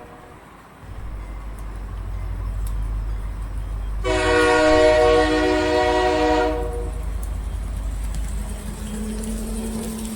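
Diesel locomotive sound: a low engine rumble that builds up from about a second in, with one long multi-chime air horn blast starting about four seconds in and lasting nearly three seconds.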